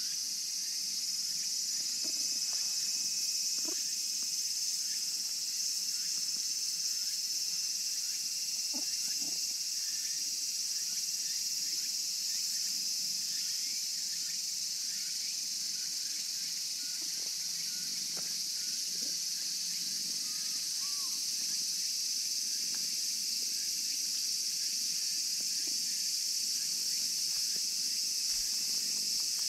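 Steady, high-pitched shrilling of a dense insect chorus that does not let up, with a few faint soft sounds underneath.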